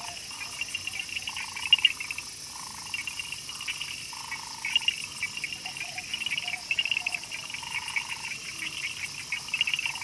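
Tropical rainforest chorus of frogs and insects: an unbroken high insect hum, bouts of fast pulsing trills, and frogs calling over it in repeated short calls of about half a second each.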